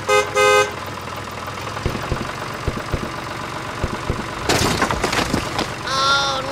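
A toy tractor's engine-like hum runs steadily, opened by two short horn beeps. About four and a half seconds in comes a rattling clatter as its trolley load of biscuit packets spills onto the track, and near the end a squeaky cartoon-like voice begins.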